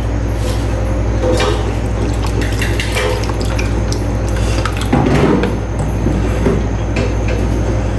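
Kitchen utensils clinking and scraping against a dish as sauce ingredients are poured in and mixed, with a louder clatter about five seconds in, over a steady low hum.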